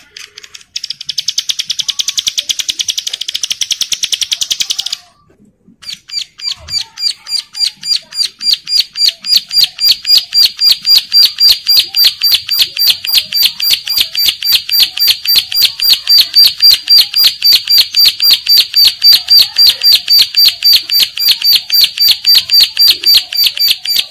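Caged prinia (ciblek sawah) in breeding condition, calling loudly: a fast buzzy trill for about four seconds, a short break, then a long run of sharp, evenly repeated notes, about four or five a second, that grows louder and keeps going.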